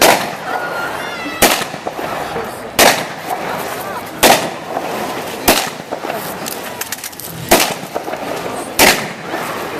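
Simulated gunfire at a military display: seven sharp, loud bangs, about one every second and a half, over a background of crowd voices.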